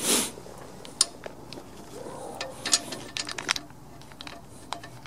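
Small metal hardware and mower parts being handled, giving scattered light clicks and taps, several in quick succession about three seconds in, after a brief soft rustle at the start.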